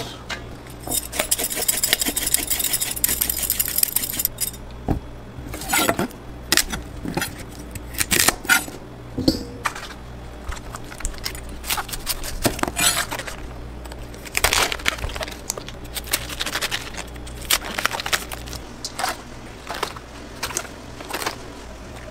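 Food-prep sounds: a chef's knife cutting through red cabbage on a plastic cutting board, and metal colanders and bowls knocking and clinking, in irregular sharp strokes. The loudest is a sharp knock at the very start, and a steady low hum runs underneath.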